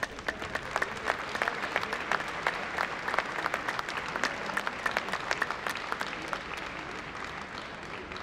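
Audience applauding, a dense patter of many hands clapping that thins out and fades over the last few seconds.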